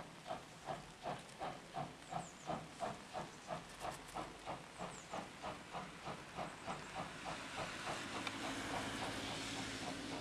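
Steam locomotive approaching under power: its exhaust beats come evenly, about three a second, growing quicker, and a steady hiss of steam grows louder near the end.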